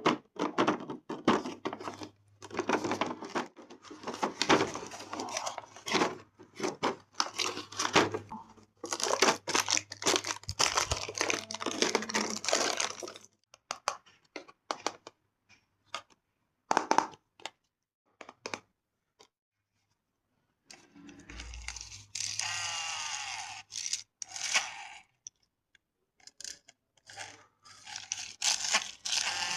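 Crackling and tearing of packaging being handled for the first half, then scattered clicks. Later come two short runs of a toy RC tuk-tuk's small electric motor whirring, its pitch rising and falling.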